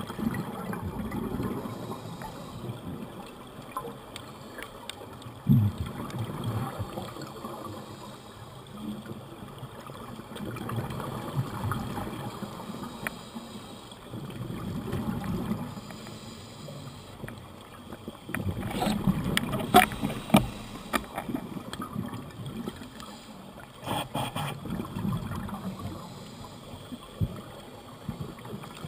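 Scuba divers' regulator exhalations heard underwater: rumbling bubble noise that swells and fades every few seconds. A sharp knock comes about five seconds in, and clusters of clicks come about two-thirds of the way through.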